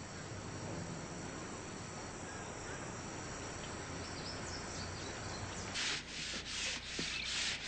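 Faint steady background, then, about six seconds in, hand sanding of wood begins: sandpaper rubbed back and forth over an old wooden piece at about two strokes a second.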